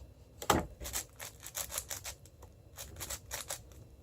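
Layers of a 6x6 speedcube, a Cubicle Red M, turned quickly by hand: a rapid, irregular run of quiet plastic clicks and clacks, with one louder clack about half a second in, as the first center is being built.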